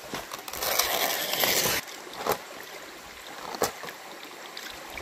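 A green bamboo tube packed with meat being handled over a banana leaf: a loud rustling scrape lasting about a second, then two short knocks, over a steadily running stream.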